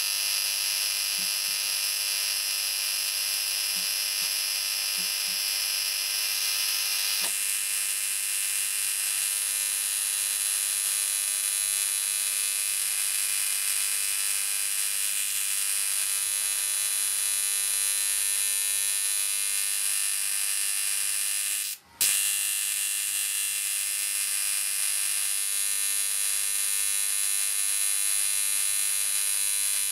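Steady, high-pitched electrical buzz of high-voltage discharges arcing through magnesium shavings. The tone shifts about seven seconds in, and the buzz cuts out for an instant about 22 seconds in, then resumes.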